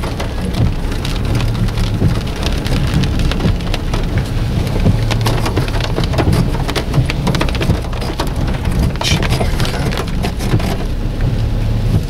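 Rain pattering on a car's roof and windscreen, a dense run of irregular small ticks, over the steady low rumble of the car driving slowly along a rough dirt track.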